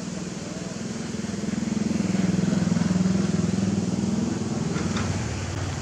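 Diesel engine of a Komatsu PC228 excavator running under working load, a steady low drone that swells to its loudest about two to three seconds in and then eases off.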